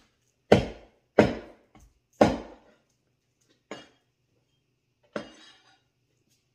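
Knife chopping on a wooden cutting board: three hard strokes in the first couple of seconds, then a few lighter knocks spaced out over the rest.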